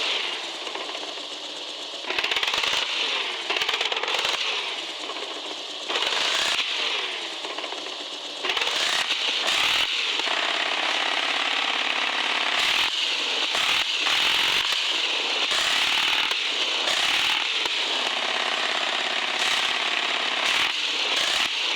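Electric motor and gearbox of a radio-controlled 4x4 model car whining and rattling under load, the pitch rising and falling as the throttle is worked, with surges about 2, 6 and 8.5 seconds in.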